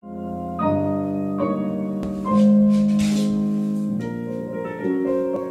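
Piano music playing slow, held chords that change about once a second.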